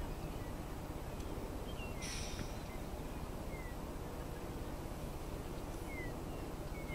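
Outdoor ambience: a steady low hiss with a few short, falling bird chirps scattered through it, and a brief higher hissing sound about two seconds in.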